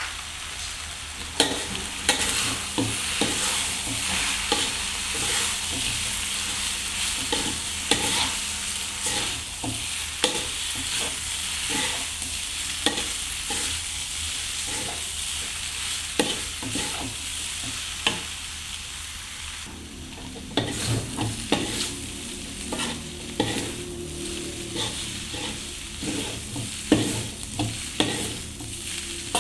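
Shrimp fried noodles sizzling in a frying pan as they are stir-fried, with frequent sharp scrapes and taps of a spatula against the pan. About twenty seconds in the sizzle briefly thins and the spatula strokes come more often.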